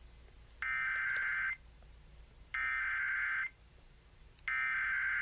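Emergency Alert System SAME header: three identical buzzing digital data bursts, each just under a second long and about a second apart. They mark the start of a new alert, here a severe thunderstorm warning.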